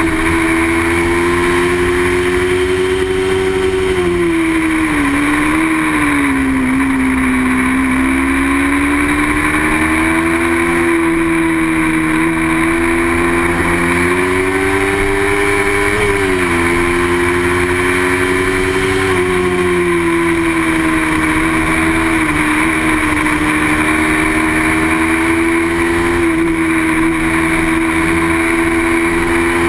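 Racing motorcycle engine held at high revs under load, its pitch climbing slowly and dropping sharply a few times as gears change, over a steady rush of wind noise.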